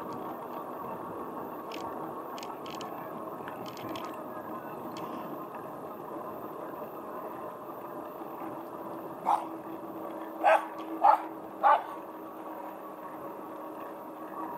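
Bicycle rolling along with steady tyre and wind noise, and a small dog barking four short times a little past halfway, louder than the riding noise.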